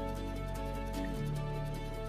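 Soft background music with long held notes, the low notes changing a little over a second in.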